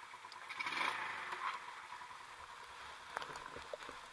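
A gloved hand brushing hail off a motorcycle seat: scraping swipes in the first second, then a few light clicks.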